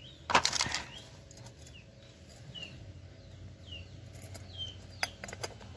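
A short clatter of metal being handled about half a second in, then a few light clicks near the end as the ringed piston of a Yamaha Vega R is eased into its cylinder bore. A small bird chirps short falling calls in the background.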